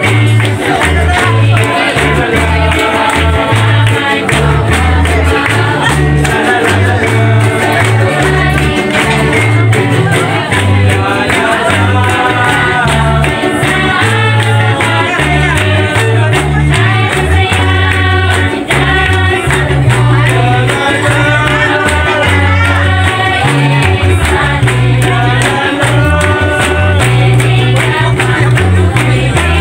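Upbeat music with a group of voices singing over a bass line that moves from note to note.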